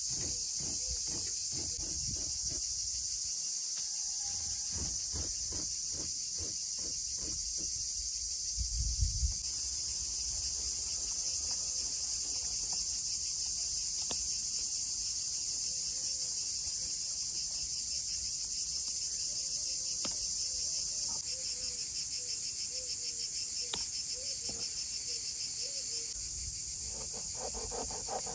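A steady chorus of crickets chirping, the loudest sound throughout. Over roughly the first third a kitchen knife scrapes along a whole fish on a wooden cutting board in quick, even strokes, with a single dull knock about nine seconds in.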